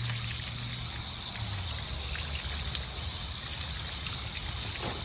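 Water trickling steadily, with a low steady hum underneath that drops slightly in pitch about a second and a half in.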